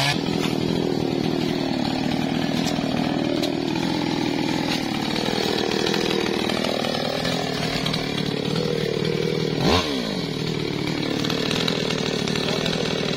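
Small MAESTRO mini chainsaw running under load as it cuts into a teak trunk, its engine pitch wavering as the chain bites. About ten seconds in, the pitch dips sharply and picks up again.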